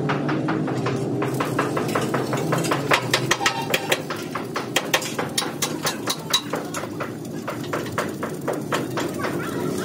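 Irregular sharp metallic clicks and taps, several a second, as steel bolts and nuts knock against the steel plate of a tractor blade while they are fitted by hand. A steady low hum runs beneath.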